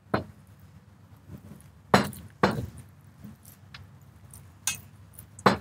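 Kitchenware clinking and knocking: a handful of short, sharp strikes, two close together about two seconds in and two more near the end.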